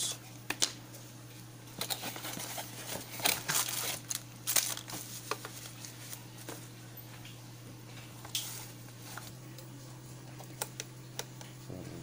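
Plastic bubble-wrap packaging crinkling and rustling in short bursts as it is handled, with a few small clicks, over a faint steady low hum.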